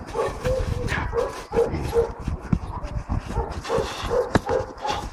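Belgian Malinois giving short, repeated barks, about two a second with a pause midway, during bite work on a man in a padded bite suit.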